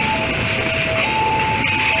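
Railway level-crossing warning alarm sounding a two-tone pattern, high then low, switching just under once a second, over the steady noise of a train running past.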